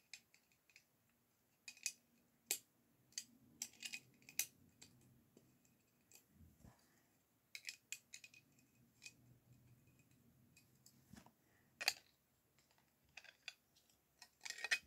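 Lego bricks being handled and pressed together: faint, scattered sharp clicks and small clatters at irregular intervals, with quiet gaps between them.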